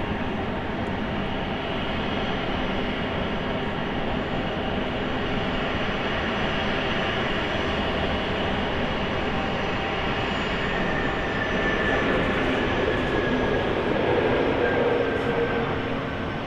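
Turbofan engines of Cessna Citation business jets taxiing at idle: a steady jet rumble with a whine. About twelve seconds in the sound grows louder, with a whine that slowly falls in pitch.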